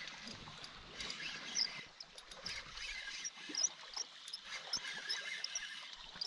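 Faint, short high chirps from a small animal, repeating every second or so, with a few light knocks.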